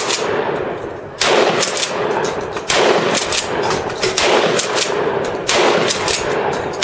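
Gunfire from several guns on an open firing line: a steady run of sharp, overlapping shots, with three heavier blasts (a bit over a second in, just under three seconds in, and about five and a half seconds in), each ringing on with a long echo.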